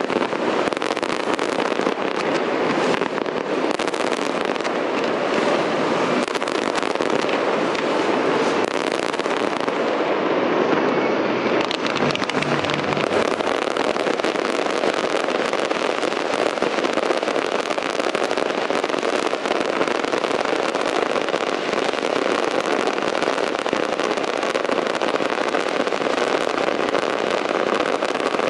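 Fireworks display: an unbroken barrage of many bursts and crackles at a steady level.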